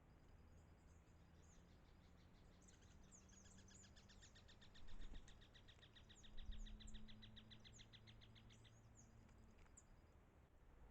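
Faint wild birdsong: a fast, even trill of repeated notes, about six a second, lasting some six seconds mid-way, with scattered high chirps around it. Two dull low thumps come about halfway through.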